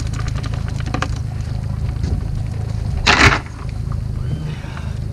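A herring net being handled over a boat's side into a plastic bucket: water dripping and pattering off the mesh as a string of small ticks, with one short loud rush of noise about three seconds in as the net and catch go into the bucket. A steady low hum runs underneath.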